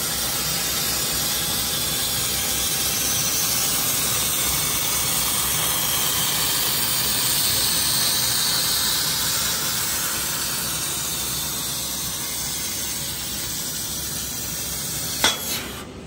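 Fiber laser cutting head burning through steel sheet: a steady, loud hiss of assist gas blasting from the nozzle as the beam cuts. Near the end a sharp click, then the hiss dies away as the cut finishes.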